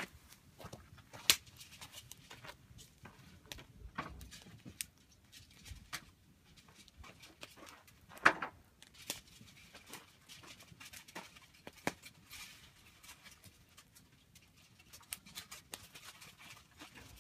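Campfire crackling with irregular small pops, and two sharp, loud snaps, one about a second in and one about eight seconds in.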